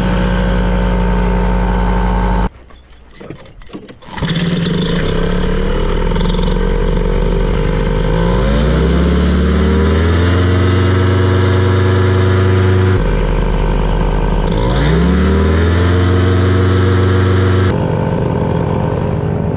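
Paramotor engine and caged propeller of a small airboat running, throttled up twice with its pitch rising and then holding high, falling back in between. The sound briefly drops away about two and a half seconds in.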